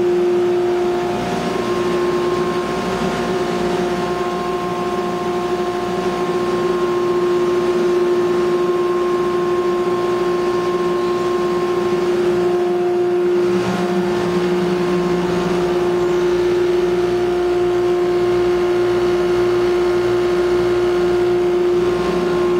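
Woodworking dust collector with a 2 hp single-phase motor running steadily: a constant loud hum with a strong, steady whine from the fan, over a rush of moving air.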